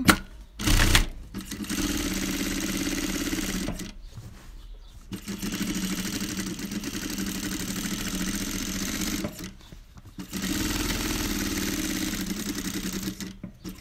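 Electric sewing machine stitching through layered cotton fabric in three runs of a few seconds each, stopping briefly between them. A sharp thump comes just before the first run.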